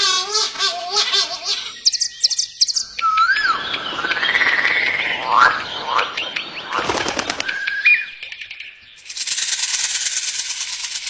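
A quick succession of different wild animal sounds: assorted bird calls and whistles, a noisy rustling stretch, then a dense high-pitched trill near the end.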